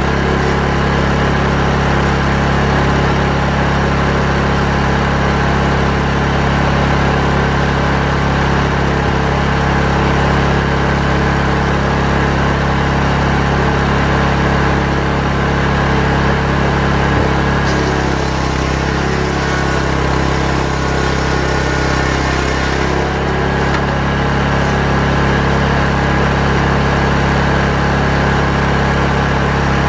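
Engine-powered saw ripping a log into lumber, its small engine running steadily under load, with a slight change in tone about two-thirds of the way through.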